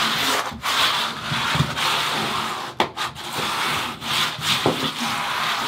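Rough scraping strokes on the plastic DITRA-HEAT membrane, about one a second, with a few sharp clicks.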